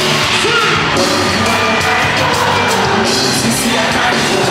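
Loud amplified music at a live concert, with singing and a crowd yelling and whooping over it.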